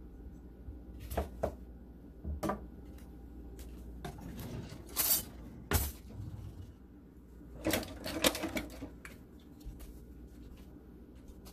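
Scattered kitchen handling noises: a few sharp knocks in the first two and a half seconds as a chef's knife and lemon are set down on a plastic cutting board, two short scraping bursts around five to six seconds in, and a cluster of clattering knocks near eight seconds.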